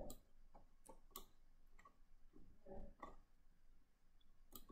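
Faint computer mouse clicks, irregular and a few per second, as the map is zoomed in, over near silence.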